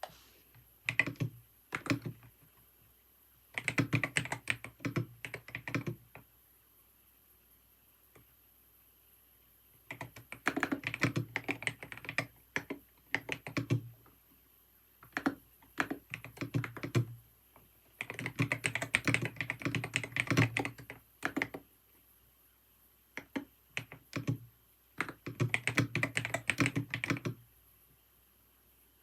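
Typing on a computer keyboard in bursts of rapid keystrokes lasting two to four seconds, separated by short pauses and a few single key presses.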